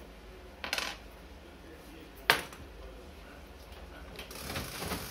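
A single sharp clink of a coin put down on a wooden counter about two seconds in, after a brief rustle. Near the end come the mechanical clacks of the keys of an antique brass cash register being pressed.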